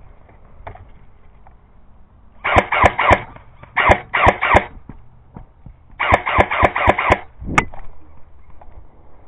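Tan M4-style airsoft rifle firing single semi-automatic shots in quick strings, a few shots a second: a string of about four, another of about four, a longer string of about six, then one last shot near the end.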